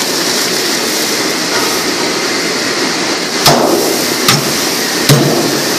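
Rice poured from a bowl into a large aluminium cooking pot of broth, over a steady rushing noise. Then three sharp knocks, under a second apart, as the bowl is struck against the pot's rim to shake out the last grains.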